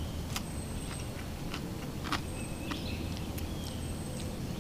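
Brief high bird chirps and scattered small clicks over a steady low background rumble.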